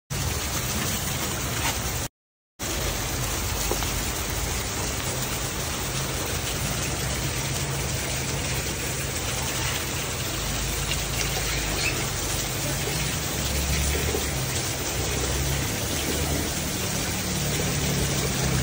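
Steady rain falling on wet concrete, an even hiss of drops. The sound drops out completely for about half a second around two seconds in.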